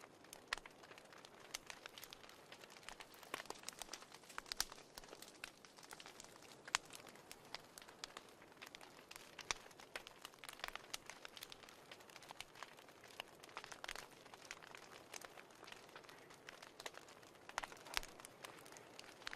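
Wood fire crackling, with irregular sharp pops and snaps over a soft, steady hiss.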